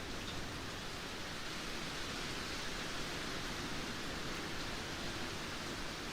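Steady rain, an even hiss of falling drops with no single drops standing out.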